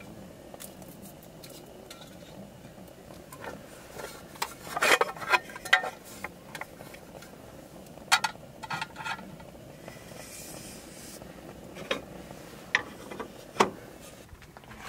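Metal mess tin clinking and knocking as it is handled and set down on a small camp stove, in a few separate clusters of sharp taps, with a couple of knocks near the end as a wooden board is laid on a slatted wooden table.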